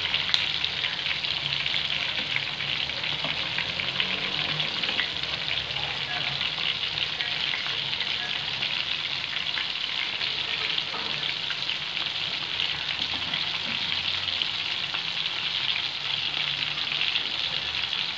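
Marinated prawns deep-frying in bubbling oil in a pan: a steady sizzle with small crackles, while a slotted spoon stirs and turns them.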